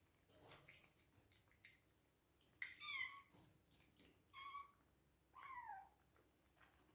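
Hungry Bengal kittens meowing: three short, high meows, the last one sliding down in pitch, with faint clicks in between.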